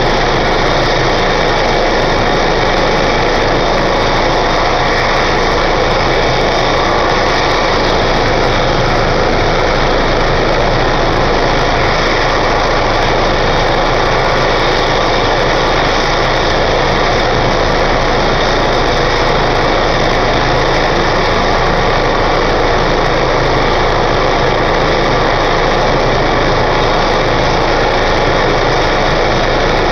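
Eurocopter EC135 medevac helicopter running on the ground: a loud, steady turbine whine and rotor noise that does not change, the engines at ground idle before lift-off.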